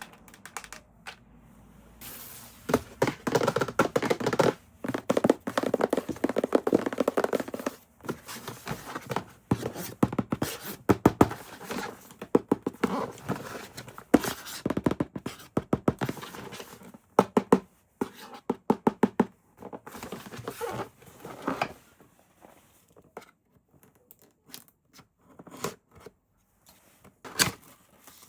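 Handling noises from unboxing toys: irregular knocks, taps and thunks, with a denser stretch of scraping and rustling a few seconds in.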